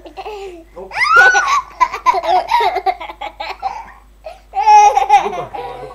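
Young children laughing in loud, choppy bursts of giggles, starting about a second in and again near the end.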